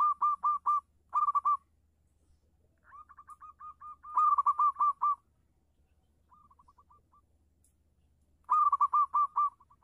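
Zebra dove (perkutut) cooing in rapid runs of short, evenly repeated notes, about six a second. The phrases last one to two seconds with pauses between them. Loud phrases come at the start, about four seconds in and near the end, with fainter runs between them.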